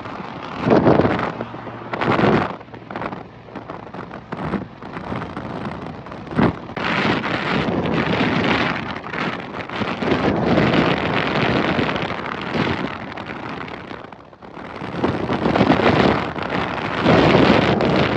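Wind buffeting the microphone in loud, gusty surges that rise and fall, with a brief lull about three-quarters of the way through.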